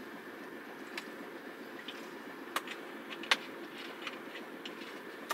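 A plastic drink bottle handled while drinking: a few sharp clicks and crackles over a steady hum inside a truck cab, the loudest click about three seconds in.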